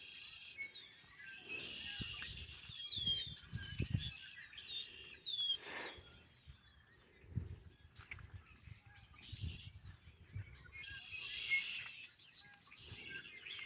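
Songbirds singing in several overlapping phrases of quick chirps and slurred whistles, busiest early on and again near the end. Short low rumbles come now and then underneath.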